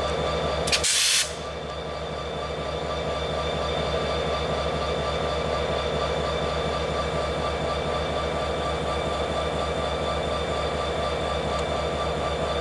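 Diesel freight locomotive engine running steadily, with a short sharp hiss about a second in.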